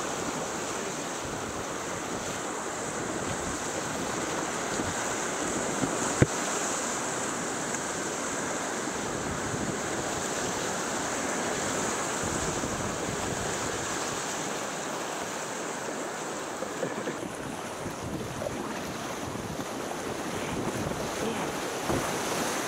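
Whitewater rapids rushing steadily around a kayak, picked up close by a camera on the boat's deck, with wind on the microphone. A single sharp knock about six seconds in.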